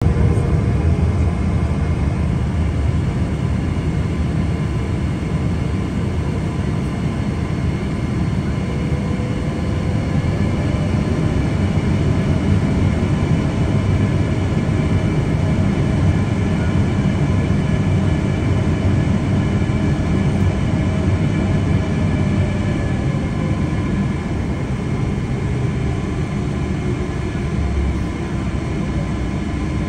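Steady low rumble of a Boeing 777-300's cabin as the airliner taxis, its jet engines at low thrust, with faint steady whining tones on top.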